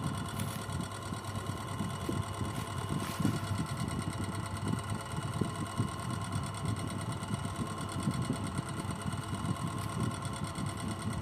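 Coconut husking machine running steadily, a continuous low mechanical rumble with a constant hum over it.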